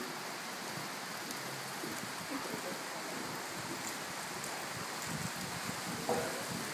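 Horse cantering on the soft sand footing of an indoor arena: dull, irregular hoofbeats under a steady rushing hiss, with a short, sharper sound about six seconds in as the horse takes a jump.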